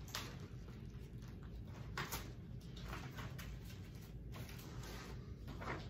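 Quiet room tone with a steady low hum and a few faint rustles and handling noises, about two seconds in and again near the end, as a question card is fetched.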